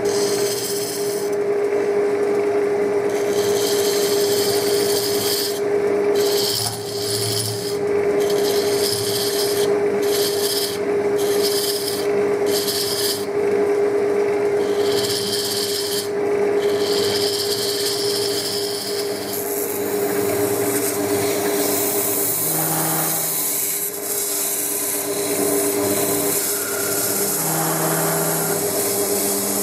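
Wood lathe running with a steady hum while a turning gouge cuts the spinning wooden blank, the hiss of the cut coming and going with each pass of the tool. In the last part the cutting turns into a steadier, finer scraping hiss as a flat scraping tool throws fine dust.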